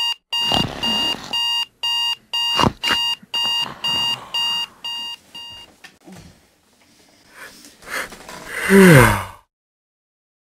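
Clock-radio alarm beeping with a high-pitched tone, about two to three beeps a second, stopping after about six seconds, with rustling and a sharp thump under it. Near the end comes the loudest sound: a person's long groan falling in pitch.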